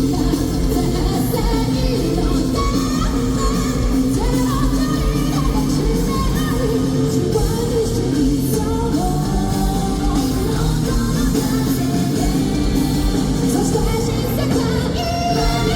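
A rock band plays live, with guitar, bass, drums and keyboard, and a woman sings lead over it.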